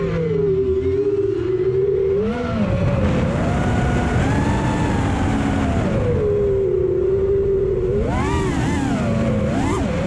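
Brushless motors and propellers of an FPV quadcopter whining, the pitch sliding down and up with the throttle, with quick rising-and-falling swoops near the end. A low rush of wind runs underneath.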